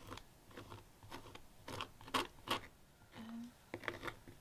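A small metal palette knife scraping and spreading glue over coarse burlap: a run of short, irregular scratchy strokes.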